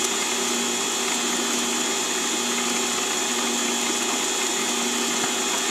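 Mini-lathe running at a steady speed, a low hum with a high whine over it, while a 0.5 mm drill bit feeds into a spinning steel bolt.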